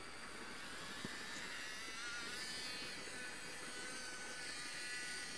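Faint whine of the small DC electric motor driving a 1:50 scale model boat's Z-drive, its pitch rising about two seconds in as the boat gets under way. A single short click comes about a second in.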